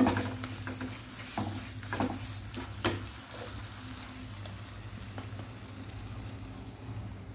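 Thick rasam paste frying in oil in a nonstick pan, sizzling quietly while a wooden spatula stirs and scrapes it, with a few sharp scraping strokes in the first three seconds and a steadier sizzle after. The oil has begun to separate from the paste, the sign that it is frying through.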